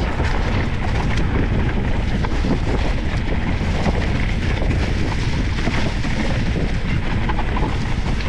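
Mountain bike ridden fast down a rough dirt trail: wind buffeting the camera microphone, with the tyres rumbling over the ground and the bike rattling with many small knocks.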